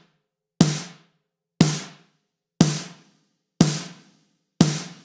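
A sampled acoustic drum in the MDrummer virtual drummer, struck five times about once a second, each hit ringing out and dying away over half a second. The hits are played through the mixer's reverb and amp sends, which make the drum sound big and thick.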